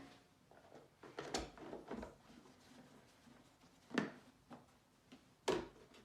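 A few scattered knocks and thumps of things being handled on a kitchen worktop, five in all, the loudest about four seconds in.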